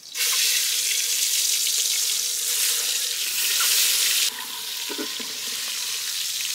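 Peeled boiled eggs rubbed with turmeric and salt sizzling loudly as they go into hot oil in an aluminium pot. The sizzle eases about four seconds in, and a spatula stirs them near the end.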